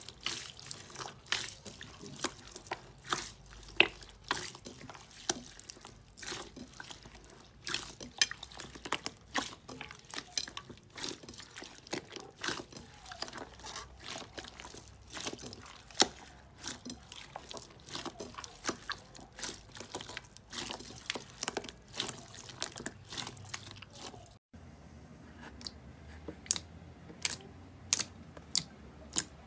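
Hands squishing and kneading clear green slime packed with small beads: wet, irregular crackling and clicking. After a brief break near the end, sharper pops come about twice a second as a hand presses into a thick dark slime.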